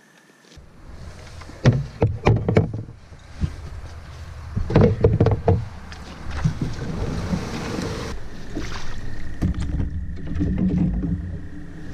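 A run of loud, sudden knocks and thumps, then a steady low rumble of wind on the microphone with water noise as the canoe moves along a narrow stream.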